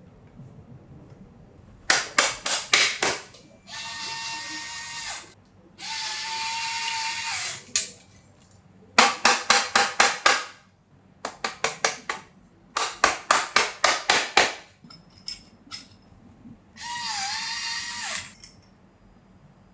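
A cordless drill-driver runs in three short whirring bursts. Between the bursts come four runs of sharp clicks, about five a second.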